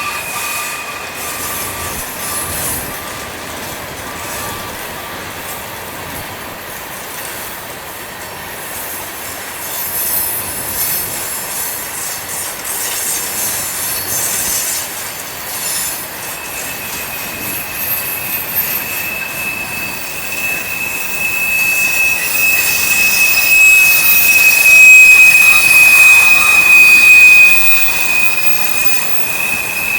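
Union Pacific freight cars rolling through a curve with their wheel flanges squealing against the rail. One steady high squeal fades out in the first couple of seconds, and another sets in about halfway through, loudest a few seconds before the end.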